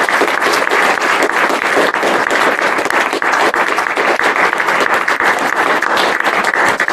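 Audience applauding at the end of a talk: many overlapping hand claps at a steady level.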